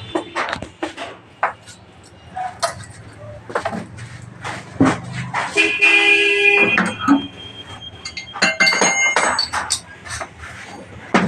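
Repeated short metallic clinks and knocks of hand tools on an engine. A vehicle horn sounds for about a second near the middle.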